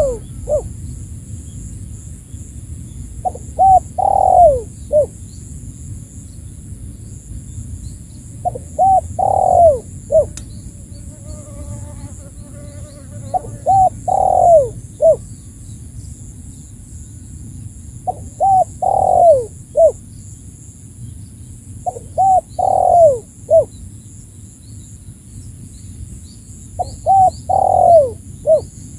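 Spotted dove (tekukur) cooing its lure call: six phrases, about one every four to five seconds, each a few short coos, a long falling coo and a short closing note.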